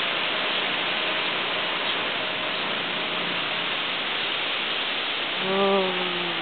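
Steady rushing hiss of storm rain and wind. Near the end, a brief pitched sound slightly falling in pitch rises over it.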